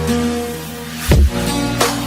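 Electronic dance-style background music with a deep bass line and heavy beat hits, an instrumental gap between sung lines of a pop song.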